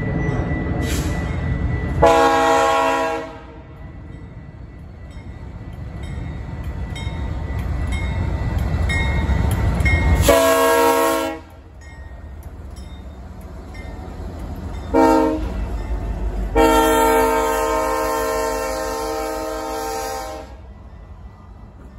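Diesel freight locomotive horn sounding the grade-crossing signal: two long blasts, a short one, then a final long blast of about four seconds. Between the blasts the lead Kansas City Southern locomotives rumble louder as they draw near and pass.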